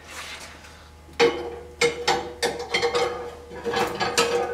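Metal axle rod clanking and scraping as it is pushed through the axle holes of a kerosene heater's wheel cart frame: from about a second in, a string of sharp metal knocks over a ringing metallic tone.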